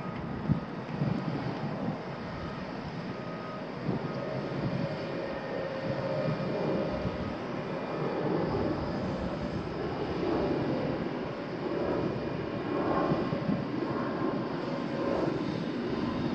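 Diesel engines of a Volvo crawler excavator and a wheel loader running as the excavator swings and works its arm. A faint steady whine sits over the engine drone near the middle, and the sound swells unevenly in the second half.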